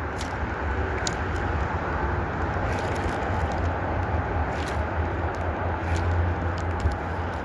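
Steady rumble of highway traffic, with a few faint ticks.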